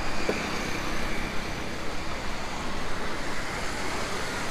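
Steady road traffic noise: cars and motorbikes passing on the road.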